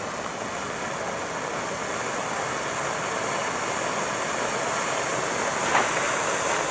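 Ground firework fountain burning, a steady spraying hiss that slowly grows stronger, with a faint crackle near the end.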